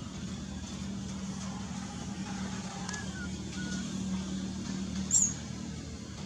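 Steady low hum of a running vehicle engine over background noise. A short, sharp high squeak stands out about five seconds in.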